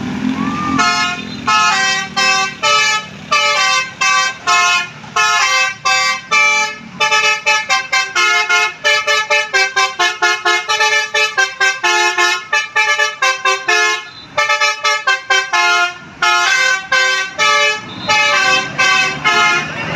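Bus telolet musical air horn of the Basuri type playing a fast melody: a long run of short, stepped horn notes, several a second, with a few brief breaks.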